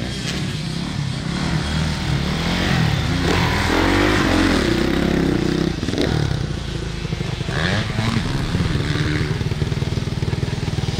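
Motocross dirt bike engines revving, the pitch climbing and falling as the riders accelerate and shift through the gears. The revving is loudest about three to five seconds in.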